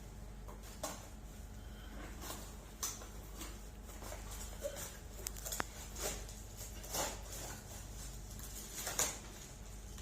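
Gift wrapping and packaging being handled and opened, a run of irregular crinkles and rustles, the loudest about nine seconds in.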